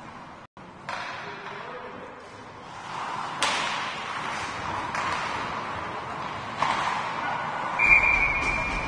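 Crowd noise at an ice hockey game, growing louder about three seconds in and broken by several sharp knocks. Near the end a steady high tone sounds for about a second.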